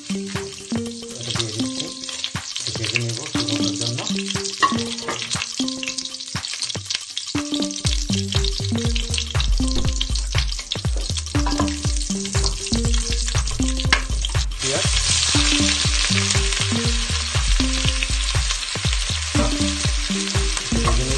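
Whole spices sizzling in hot oil in a stainless steel pot, with small crackles and spits; about two-thirds through, sliced onions go in and the sizzle becomes louder and denser. Background music with a bass beat plays underneath.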